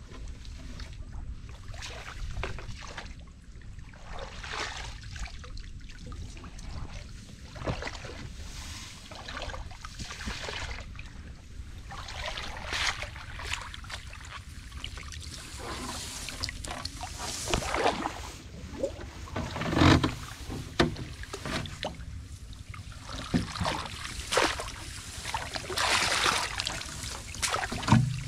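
Shallow muddy water splashing and sloshing in irregular bursts as a person wades through a flooded rice paddy and scoops a woven bamboo basket through it, the splashes busier and louder in the second half, over a steady low rumble of wind on the microphone.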